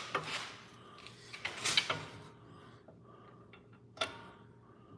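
Scrapes and knocks of hand tools being handled on metal, with a few light ticks and a sharp click about a second before the end.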